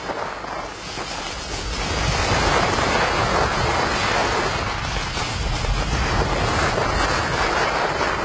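Skis sliding and scraping over packed snow in a snowplough wedge, with wind rushing over the microphone: a steady rushing noise that grows louder about two seconds in.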